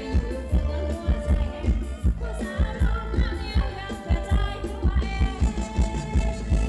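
A band playing a Thai ramwong dance song with a singer over a steady drum beat.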